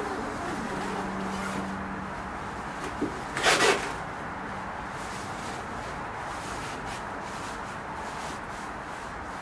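One short rasping rub or zip about three and a half seconds in, over a steady background hiss, with a faint low hum fading out in the first few seconds.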